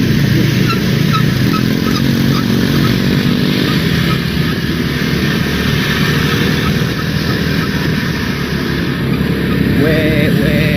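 Roadside traffic: vehicle engines running and passing steadily. A short wavering tone starts about ten seconds in.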